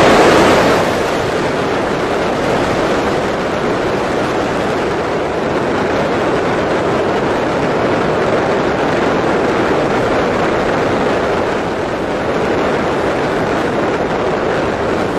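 Fireworks display going off as a dense, continuous roll of bangs and crackling that blend into one steady din, loudest in the first second.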